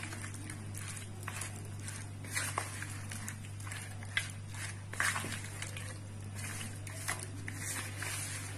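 A spoon stirring chicken pieces through a thick, wet marinade in a plastic bowl: irregular squelches with scrapes and light taps against the bowl. A steady low hum runs underneath.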